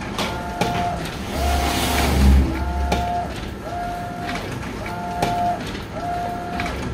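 Epson SureColor F570 sublimation printer printing: the print-head carriage sweeps back and forth with a short motor whine about once a second, with light ticks between passes. A low rumble rises and fades around two seconds in, the loudest thing heard.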